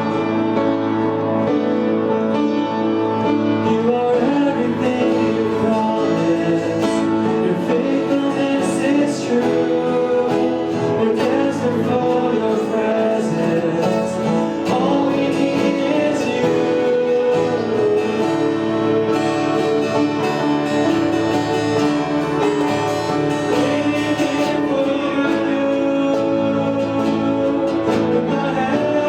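Live church worship band playing a slow worship song, with sustained instrumental chords and singing at times.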